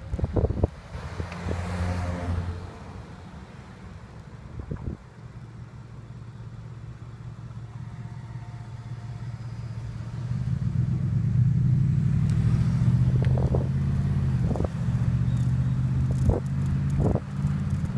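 Road traffic and wind rumbling on a bicycle-mounted camera's microphone, growing louder from about ten seconds in, with a few short knocks.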